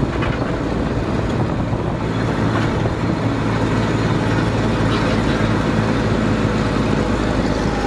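Tractor's diesel engine running steadily as it drives along a road, heard close from the driver's seat, with a low engine hum under a haze of wind and road noise.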